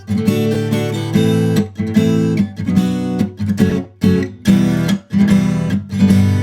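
Acoustic guitar strumming chords in a steady rhythm, broken several times by brief muted stops.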